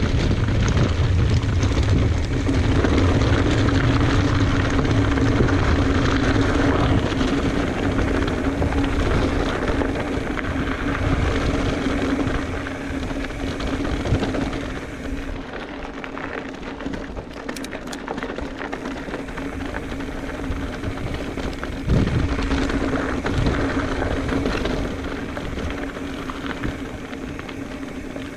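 Commencal Meta Trail 29 mountain bike rolling down a rocky alpine trail: tyres rattling over rock, with wind rumbling on the microphone and a steady hum underneath. The rumble is heaviest in the first half and eases after about 13 s. A single sharp knock about 22 s in fits a wheel hitting a rock step or drop.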